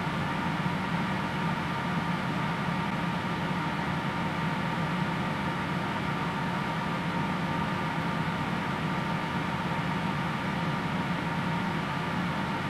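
Steady mechanical hum with a thin high whine, holding even and unchanged throughout.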